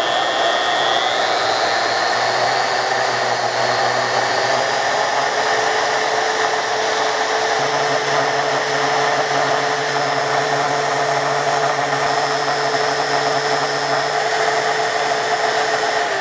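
Handheld DeWalt portable bandsaw running steadily as its blade cuts slowly through the corner of a thick steel plate, at about an inch a minute. The motor makes a steady whine over the hiss of the blade in the steel.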